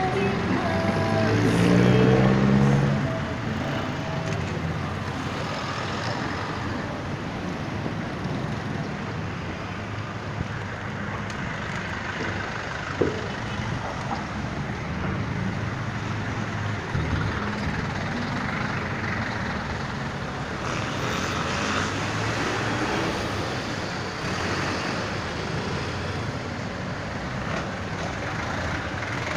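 Busy street traffic with jeepney and motorcycle-tricycle engines running close by. A nearby engine revs up loudly and rises in pitch over the first three seconds, then the traffic settles to a steady rumble, with one sharp click near the middle.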